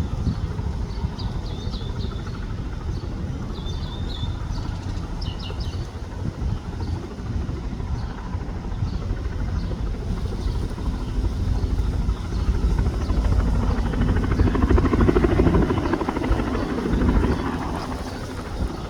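Bell 206 helicopter's rotor chopping over its turbine, growing louder about two thirds of the way through and easing off near the end as it flies low to land.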